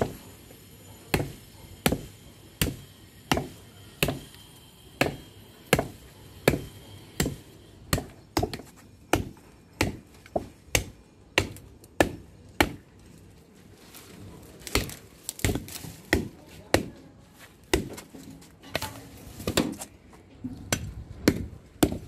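Repeated blows of a curved steel chopping knife (dao) hacking into the woody trunk of a small potted fruit tree, about one chop every two-thirds of a second, coming faster and less evenly in the second half.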